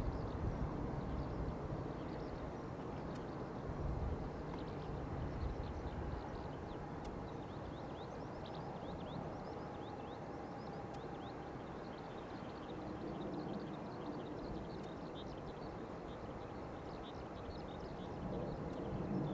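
Distant rumble of a Boeing 747-400 jetliner's four engines climbing away, fading at the start and then holding steady and low. Many short high chirps of small birds sound throughout.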